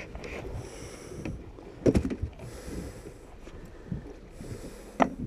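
Sounds aboard a small fishing boat on the water: a steady low rumble of wind and water with a soft hiss that comes and goes, and two sharp knocks on the boat, about two seconds in and near the end.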